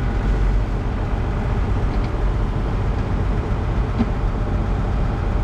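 Tractor engine running steadily, a low even rumble heard from inside the cab.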